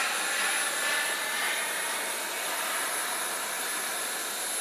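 Small gas-turbine engine of a Boomerang Nano radio-controlled model jet in flight: a steady rushing jet noise with a thin high whine, easing slightly in loudness.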